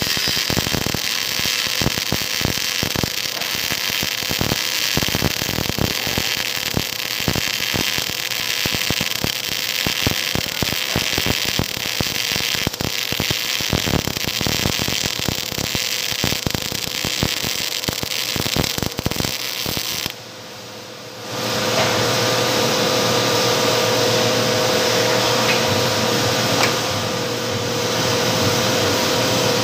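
OTC MIG welder's arc crackling steadily as a bead is laid on a steel T-joint. After about twenty seconds it stops, and a steady hum with a faint tone follows.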